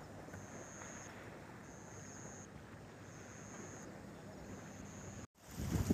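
An insect in the grass calling with a high-pitched buzz in regular bursts, each just under a second long and about four in all. Near the end it cuts off, and wind buffets the microphone loudly.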